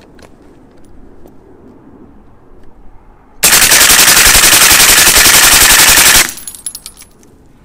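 One long burst of fully automatic fire, just under three seconds, from a short-barrelled 9mm CMMG delayed-blowback sub gun wearing an AB Suppressors Raptor .375-bore suppressor on a flush mount. It starts about three and a half seconds in and cuts off sharply. The suppressed reports are so quiet for a 9mm on full auto.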